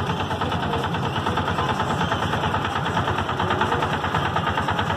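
Auto-rickshaw's single-cylinder engine idling close by: a fast, even putter that never breaks.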